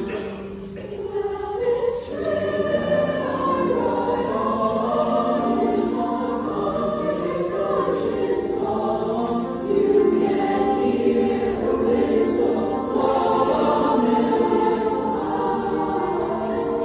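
A large mixed youth choir singing together, several pitches at once, with a swell in loudness about ten seconds in.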